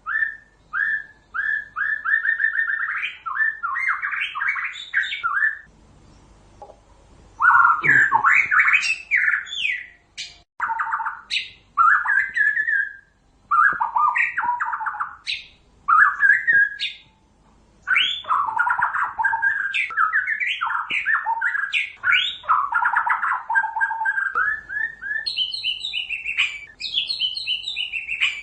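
White-rumped shama singing: a long run of loud whistled phrases made of fast repeated notes, trills and pitch glides, broken by short pauses.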